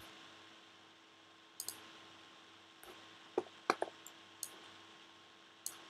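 About half a dozen light, scattered clicks from hands working a laptop's keys and trackpad, over a faint steady hum.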